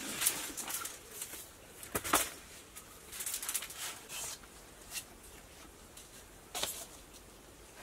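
Split firewood and kindling being handled and set down on a foil mat: a scatter of light wooden knocks and rustles, the sharpest about two seconds in.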